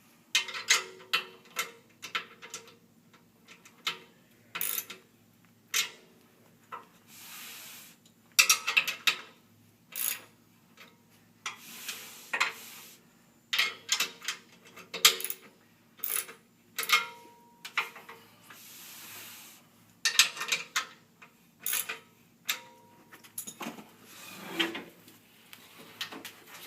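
Wrench and socket tightening the metal bolts of a patio table base: irregular metal clicks and clinks, broken by a few short rasping stretches about a second long.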